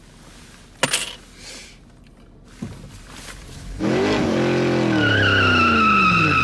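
A car pulling away hard: a sharp knock about a second in, then from about four seconds in an engine note sliding down in pitch under a steady high tire squeal.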